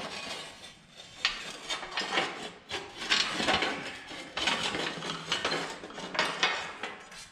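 Rusty steel diamond-plate floor panel of an old Clark forklift scraping and rubbing against the frame and levers as it is worked free, with a few sharp metal clanks.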